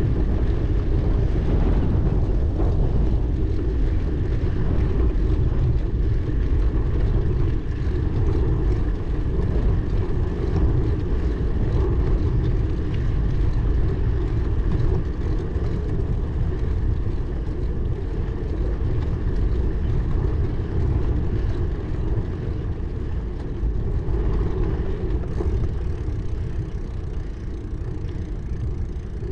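Steady low rumble of wind buffeting the microphone, flickering in level throughout.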